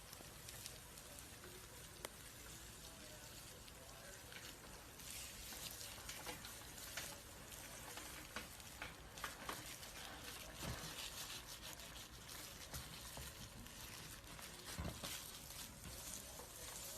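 Faint, dry crackling and rustling of a snake's skin as it sheds, with many small clicks and pops scattered through it.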